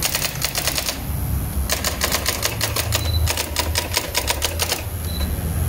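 Brother GX-series electronic daisy-wheel typewriter typing: rapid print strikes, about seven a second, in three quick runs with short pauses between.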